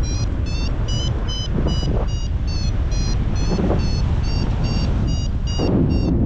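Paragliding variometer beeping steadily, about three short beeps a second with a slowly shifting pitch, the tone that signals the glider is climbing in lift. Strong wind buffets the microphone underneath.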